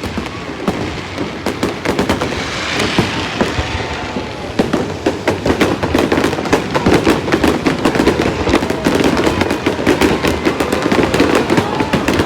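Fireworks display with many shells bursting in quick, irregular succession: a continuous barrage of cracks and bangs over a crackling hiss.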